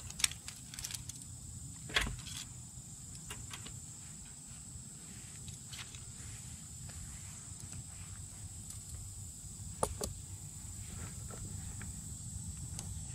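Steady high-pitched insect drone, with a few sharp clinks of metal tongs and a wire fish-grilling basket, the loudest about two seconds in and another near ten seconds.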